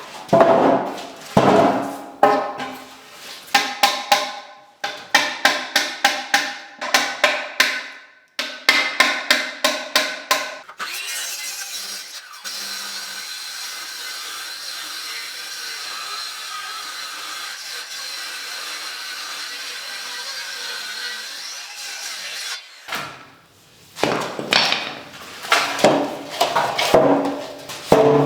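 Hand work on a wooden door: rapid rhythmic strokes of a tool on wood, about two to three a second, stop after about eleven seconds. A steady hiss follows for about twelve seconds, then the strokes start again near the end.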